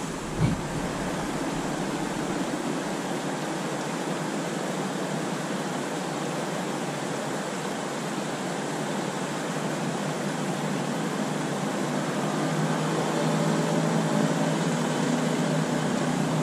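Steady rush of a shallow river running over rocks and riffles. A brief low thump comes about half a second in.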